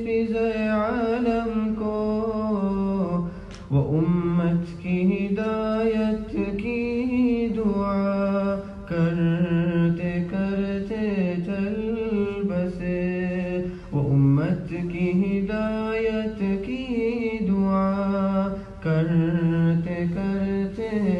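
Solo voice singing a nasheed, an Islamic devotional song. It holds long notes that bend in pitch, with short breaks between phrases.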